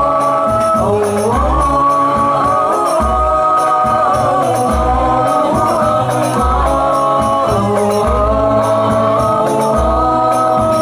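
Al Banjari sholawat group singing a devotional Islamic chant together over hand-struck frame drums, with a deep drum beat about every second and a half.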